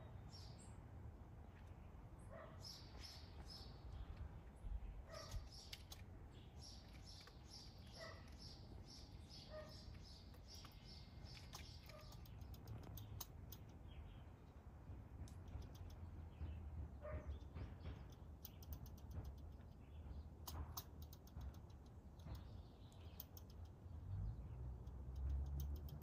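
Faint outdoor ambience: small songbirds chirping in quick repeated series, with a dog barking now and then and a low steady rumble underneath.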